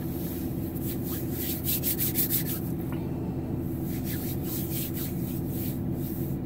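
Bare hands rubbing briskly together against the cold, in spells of quick scraping strokes, over the steady low hum of the car.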